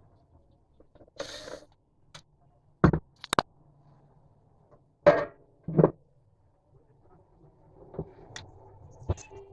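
Handling noises while a welding machine's casing is being opened: a short rustle, then a series of sharp knocks and clicks, as of tools, screws and metal panels being handled.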